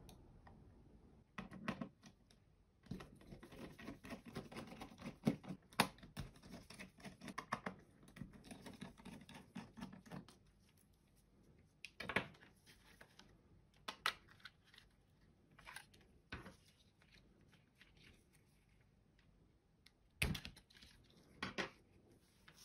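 Small screwdriver backing out the screws of a plastic computer mouse and the tools and plastic parts being handled: a dense run of faint small clicks and scrapes for the first half, then a few separate, louder sharp clicks as the mouse shell is opened.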